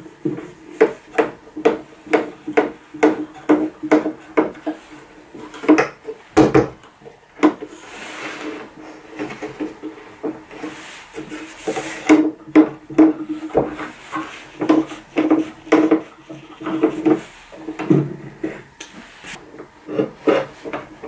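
Homemade wooden bar clamps being tightened across glued boards. There is a run of quick clicks, about two or three a second, for the first five seconds, then louder wooden knocks and rubbing as the battens and their nuts are worked by hand.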